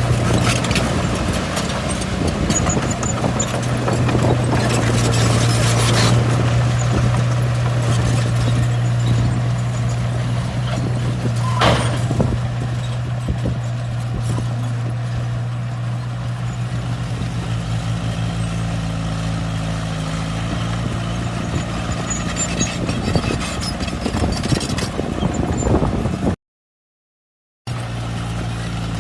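Shantui bulldozer's diesel engine running steadily under load, with clanking and scraping from its tracks and the soil and stone it pushes, busiest in the first few seconds. The sound cuts out completely for about a second near the end.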